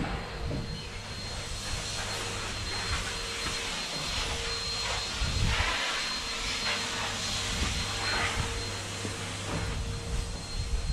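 Canister vacuum cleaner running with a steady motor whine and rushing suction.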